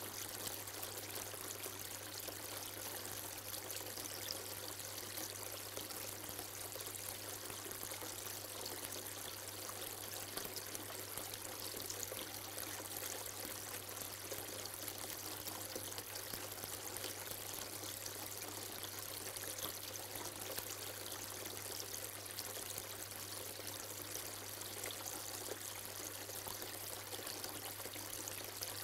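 Tiered stone-effect cascade water feature, water trickling steadily over its ledges in several thin falls and splashing into the pools below.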